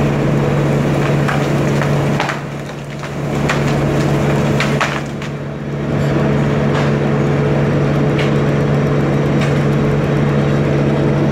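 Engine of tree-removal machinery running steadily at a constant pitch, easing off twice for a second or so, with scattered sharp knocks and cracks of wood over it.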